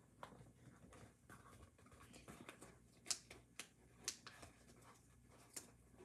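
Faint sounds of paper craft pieces being handled: soft rustling with a few sharp ticks, mostly in the second half.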